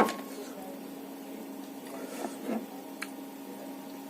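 Eating sounds: a few soft mouth and chewing noises and a short click about three seconds in, over a steady background hum.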